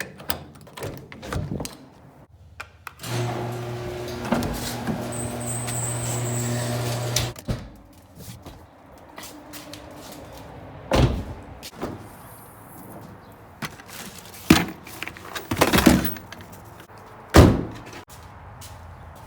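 A steady mechanical hum lasting about four seconds, then several separate sharp thumps spread over the following seconds.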